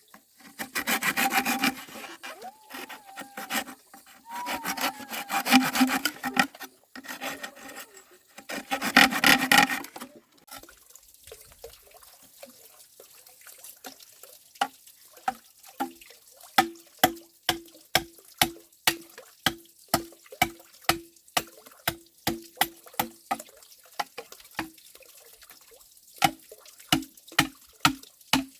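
Wood being sawn by hand in four long rasping strokes over about ten seconds, then a steady run of short knocks, about two a second, each with a brief ringing tone.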